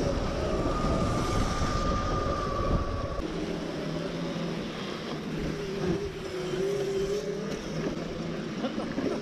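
Electric pit bike underway: a steady high motor whine, falling slightly in pitch, over a heavy low rumble from riding the wooden bridge planks that drops away about three seconds in. A lower whine rises near the middle.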